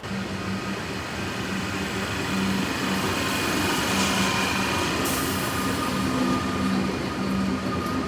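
Electric suburban train running at the platform: a steady rumble that swells a little in the middle, over a low humming drone, with a thin whine near the end.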